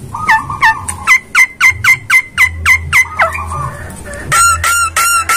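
Javan myna (jalak kebo) calling: a fast run of about a dozen sharp whistled notes, roughly four a second, then after a short break a second run of higher notes. The keeper takes these calls for a bird in the mood to mate.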